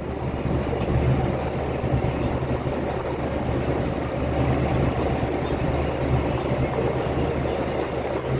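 Farm tractor engine running steadily with a low hum while pulling a rake.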